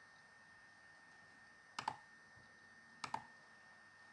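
Computer mouse clicks against faint room tone: a sharp double click about two seconds in and another about a second later.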